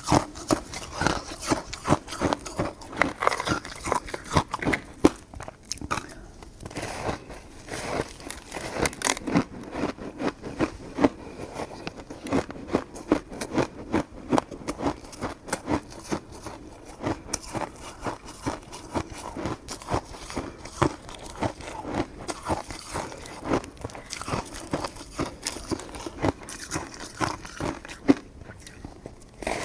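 Close-up eating of coconut sticky rice cake: mouth sounds of biting and chewing the soft, chewy rice, a dense run of small clicks and smacks.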